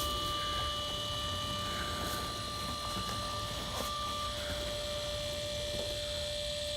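Steady electrical hum and whine made of several constant high tones over a low noise bed, one of the tones cutting off about two-thirds of the way through.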